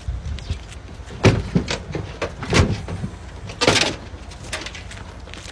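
A washing machine being handled and lifted: a string of separate knocks and thuds, the sharpest about a second and a half in, with a short harsh noise a little under four seconds in.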